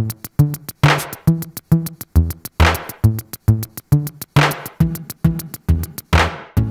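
Electronic background music with a drum-machine beat: a steady kick drum about twice a second with ticks between, and a swelling hiss every couple of seconds.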